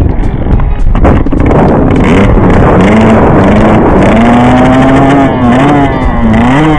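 Motocross bike engine running hard: noisy at first, then its pitch climbs steadily, and from about five seconds in it rises and falls quickly several times.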